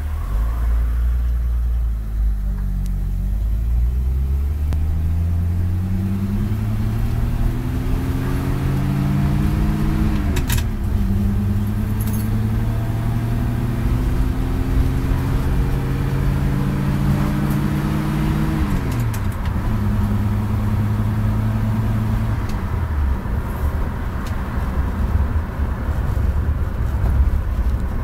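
Ford Maverick four-door's six-cylinder engine pulling the car up through the gears. Its pitch rises steadily, drops with a shift about ten seconds in and again near nineteen seconds, holds, then falls away as it eases off a few seconds later. Sharp clicks come around the first shift, from the column-mounted gear lever.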